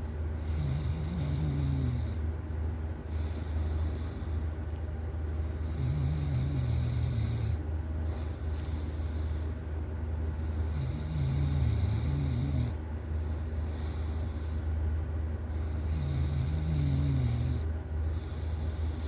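A person snoring in deep sleep: four rasping snores on the in-breath, about five seconds apart, each followed by a breathy out-breath, over a steady low hum.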